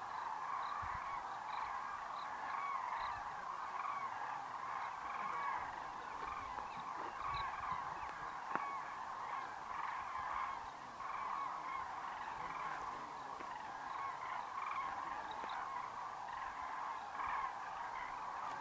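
A huge flock of common cranes calling in flight: a dense, continuous chorus of many overlapping trumpeting calls.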